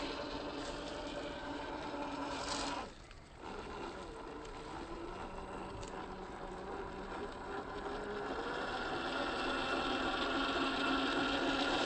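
Electric motor and geared drivetrain of a 1/10 scale RC crawler whining as it drives. The sound cuts out briefly about three seconds in, then picks up again and grows louder near the end.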